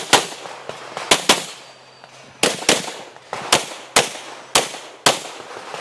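A Glock 34 9mm pistol firing about a dozen rapid shots in a USPSA Production stage, mostly as quick pairs, each shot with a short echo.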